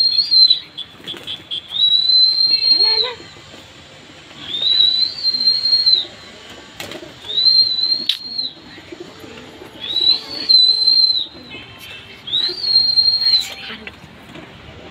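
A person whistling to flying pigeons: a run of long, loud, high whistles, about one every two to three seconds, each rising briefly at the start, holding one note and dropping away at the end.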